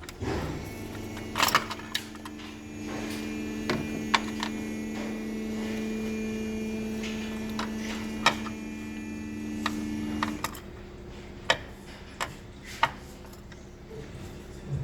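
A steady mechanical hum that cuts off suddenly about ten seconds in, with sharp clicks and knocks scattered throughout.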